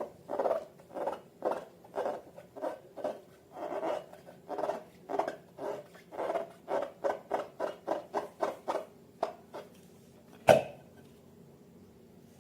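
Slime being squeezed and worked by hand in short, wet squelches, about two a second, then one sharp snap about ten seconds in.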